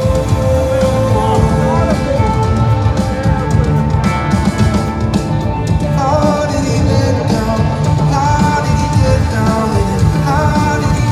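Live rock music played loud in an arena, with a singer's voice over guitar and a pulsing low end, recorded from within the audience.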